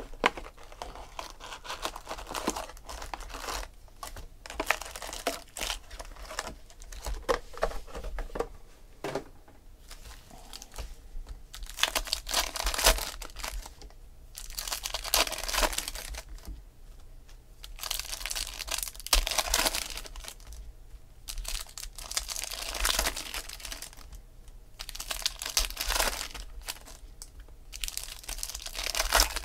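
Foil packs of 2015 Bowman Asia Edition baseball cards being torn open one after another, the wrappers crinkling in strong bursts about every three seconds in the second half. Before that, the cardboard hobby box is opened and packs and cards are handled, with lighter scattered rustling and clicks.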